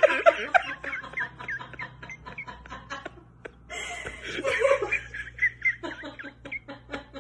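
A person laughing in short, breathy snickers and giggles, in two runs with a brief lull between them.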